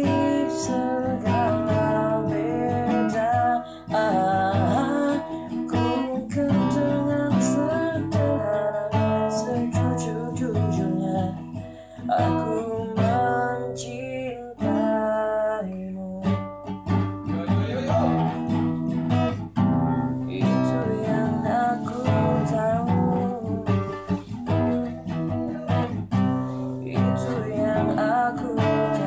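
A man singing a song while strumming and picking chords on a nylon-string classical guitar.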